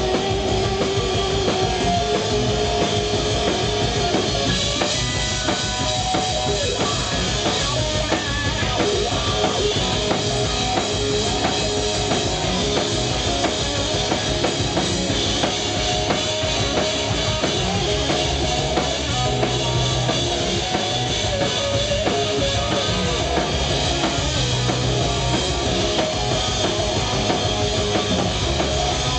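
Live rock band of electric guitar, bass guitar and drum kit playing loudly, with long held guitar notes over a steady drum beat.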